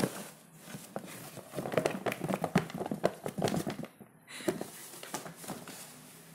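Children's shoes being handled out of a cardboard box, dropping onto a cloth-covered floor and knocking against each other and the cardboard: a run of soft, irregular knocks, thickest in the middle, with a short pause near the end.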